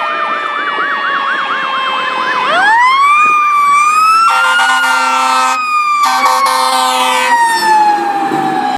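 Fire engine siren on an emergency run: a fast warbling yelp over a falling wail, then a wail that sweeps sharply up and slowly winds down. Two long, steady horn blasts sound over it near the middle.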